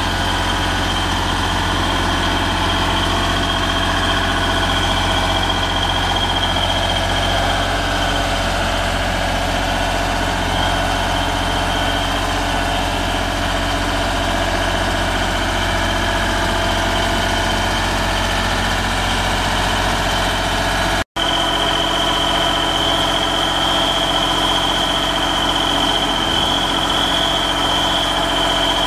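JLG 450AJ articulating boom lift's Deutz diesel engine running steadily, with a steady high whine over it. The sound drops out for an instant about two-thirds of the way through, and the whine is louder after that.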